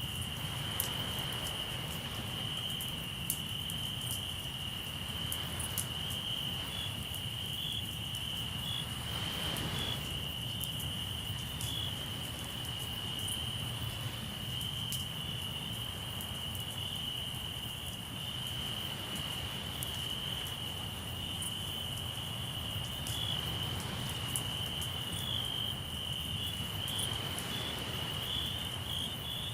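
Crickets chirring in a steady high-pitched trill, with the sharp pops and crackles of a campfire scattered over it and the low wash of the sea underneath.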